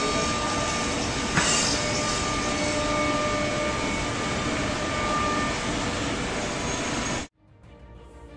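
Steady mechanical drone of woodworking-factory machinery running, with a single sharp knock about a second and a half in. It cuts off abruptly near the end, and quiet music starts to fade in.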